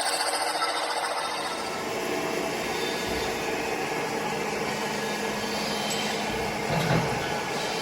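A machine tool running steadily in a workshop, with a fast high-pitched rattle that dies away in the first two seconds.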